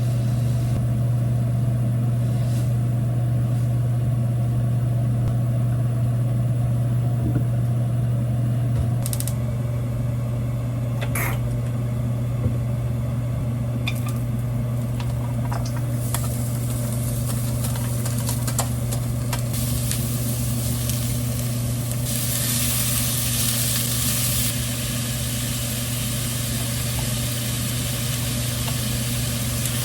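Food sizzling in a frying pan as it is stirred, with scattered clicks of a utensil against the pan, over a steady low hum. The sizzle builds past the middle and is loudest about three-quarters of the way through.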